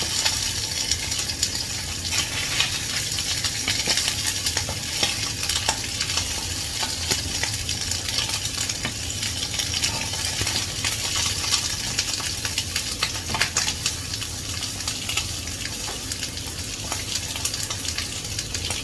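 Ginger and multicoloured peppers stir-frying in hot oil: a steady sizzle with frequent clicks and scrapes of a spatula against the pan.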